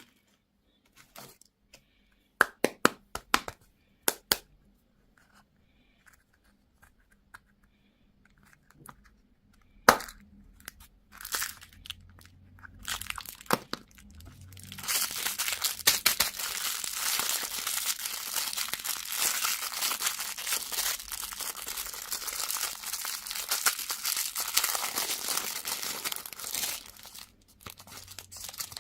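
Handling of candy packaging: a few sharp plastic clicks and snaps, then about twelve seconds of steady crinkling and tearing of a plastic wrapper.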